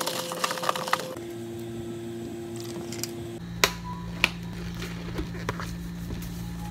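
Ice and fizzing soda crackling as a drink is stirred with a straw in a plastic cup, then two sharp clicks as clear plastic dome lids are pressed onto the cups, over a steady low hum.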